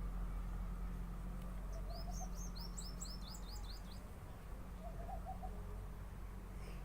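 A small bird chirping a quick run of about ten short rising notes, over a steady low hum.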